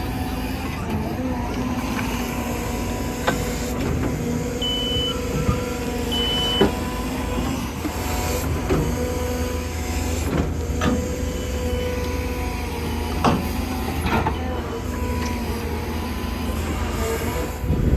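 Excavator diesel engine running steadily, with scattered knocks and clanks of the working machine and two short high beeps a few seconds in.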